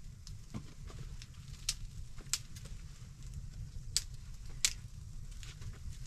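Small open wood fire crackling, with a few sharp pops over a steady low rumble.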